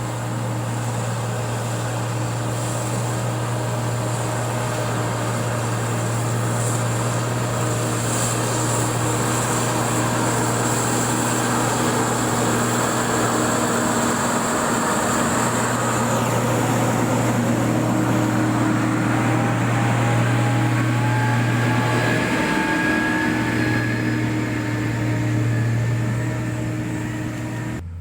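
Diesel engine of heavy road-construction equipment running steadily under load, a deep steady hum with faint whining tones that rise slowly in pitch in the second half.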